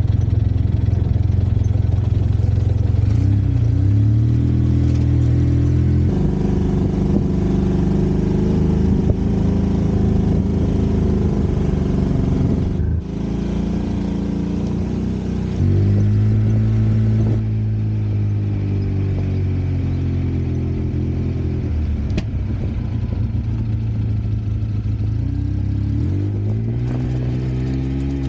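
Side-by-side UTV engine running while driving along a trail, its pitch stepping up and down as it speeds up and eases off, with a brief drop about 13 seconds in.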